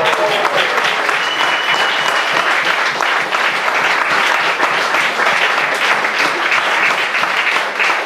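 Audience applauding, a steady clapping that stays loud throughout.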